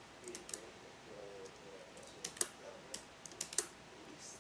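Typing on a computer keyboard: irregular keystrokes with a few sharper, louder clicks in the second half.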